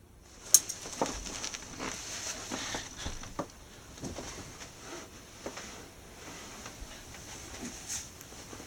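Faint handling noise: scattered soft taps and rustles at irregular intervals, with a sharper click about half a second in.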